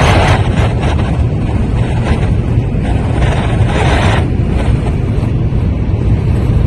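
Wind noise inside the cab of a 2019 Ford Transit van while driving: a loud, steady rush with hissing surges near the start and again around three to four seconds in. It is the sign of wind leaking in past the passenger door's too-thin factory door seals.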